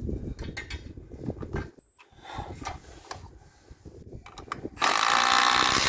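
Handling knocks and clatter, then near the end a power drill runs for about a second, driving a screw or bit.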